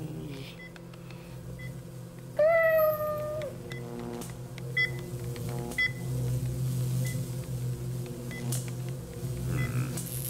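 Microwave oven running with a steady low hum, with short high beeps now and then from its timer. About two and a half seconds in, a cat gives one loud meow, gently falling in pitch.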